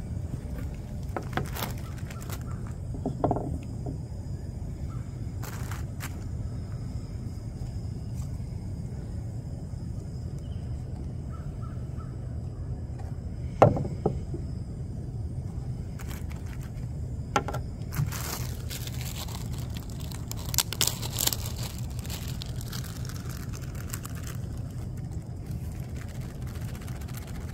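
Handling sounds of an AeroPress coffee maker being assembled on a wooden picnic table: light plastic clicks, a sharp knock about halfway through as it is set down, then crinkling of a foil pouch, over a steady low background rumble.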